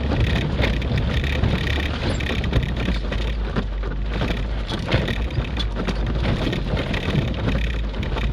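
1992 Suzuki Sierra engine running at a steady low drone as the four-wheel drive crawls over rough ground, with frequent knocks and rattles from the body and suspension; two sharper knocks about two and a half and five seconds in.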